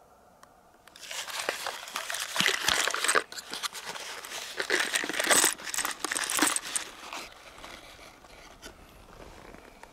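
A cardboard box of 7.62 mm brass-cased rifle cartridges being handled and the cartridges tipped out, the rounds clinking and rattling against each other amid cardboard rustling. The noise starts about a second in and dies away after about seven seconds.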